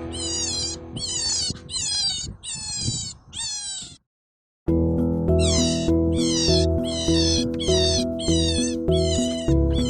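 High-pitched animal squeals, each sliding sharply downward, repeated in an even rhythm about one and a half times a second over background music. The sound cuts out completely for about half a second near the middle, then the squeals and music resume.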